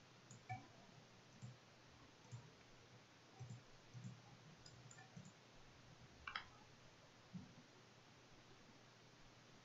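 Faint, irregular clicks and soft taps of a computer mouse and keyboard over near-silent room tone, the sharpest click about six seconds in.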